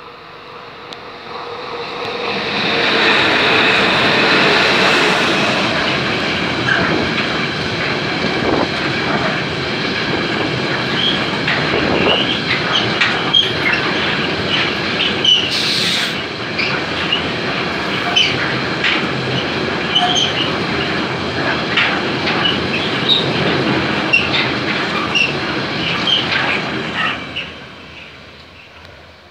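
Freight train of tank-container wagons running past close by: steel wheels clattering over the rails with many short wheel squeals. It builds quickly, is loudest a few seconds in, and fades away near the end as the last wagon goes by.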